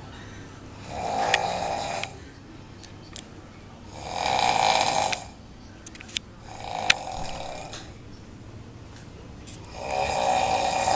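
A sleeping person snoring: four snores about three seconds apart, the third one softer.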